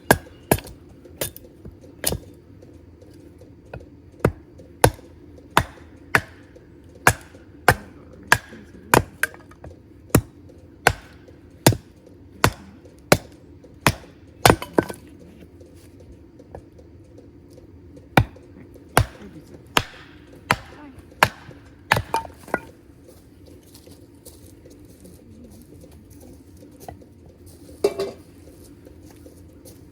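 Repeated sharp strikes with a short metallic ring, about one and a half a second and steadily paced for some fifteen seconds. After a pause there is a second run of strikes at the same pace, and one rougher knock near the end.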